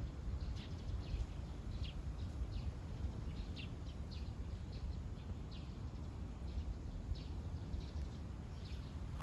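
Small birds chirping, short sharp calls repeating irregularly about once or twice a second, over a steady low rumble.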